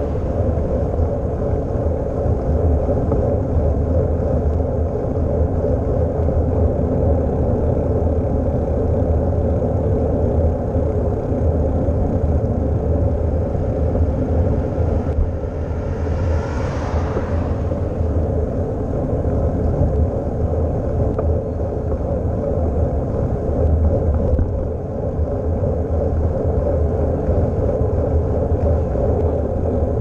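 Steady low wind rumble on a bicycle-mounted GoPro's microphone while riding. About halfway through, an oncoming car passes with a brief swell of hiss that fades.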